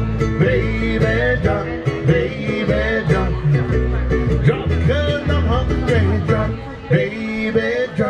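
Live Hawaiian band music: an upright bass plucking a walking line under a strummed acoustic guitar, playing without a break.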